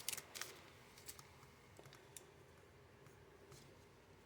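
Near silence with a few faint, scattered clicks and taps of trading cards being handled and flipped.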